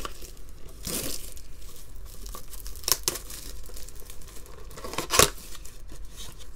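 Plastic shrink wrap crinkling and tearing as it is stripped from a cardboard blaster box of trading cards, with sharp rustles about one, three and five seconds in, the last the loudest. Near the end the box's cardboard top flap is pulled open.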